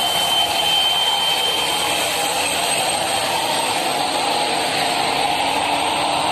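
A convoy of army trucks driving past, their engines running under steady road noise, with a thin high tone held over it.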